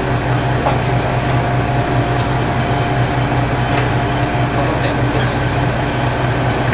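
MRT300 diesel railcar's engine idling while the car stands at a station platform, heard inside the driver's cab: a steady low drone with a fainter steady whine above it.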